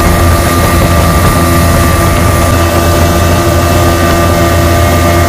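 Fishing boat's motor running steadily at speed, a constant low engine note with a rush of water and air.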